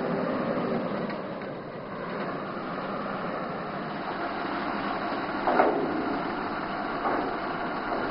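Tata heavy truck's diesel engine running at low speed as the truck creeps forward onto the steel weighbridge platform. A brief louder sound stands out about five and a half seconds in.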